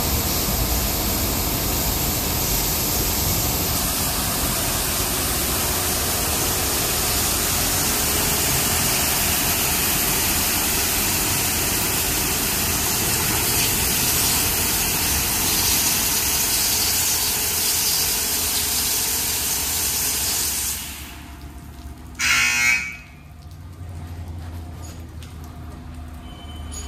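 High-pressure water jets of an NCS/Ryko Radius touch-free car wash spraying onto a car in a steady, loud hiss that stops about 21 seconds in. A brief loud hiss follows about a second later, then the bay is much quieter.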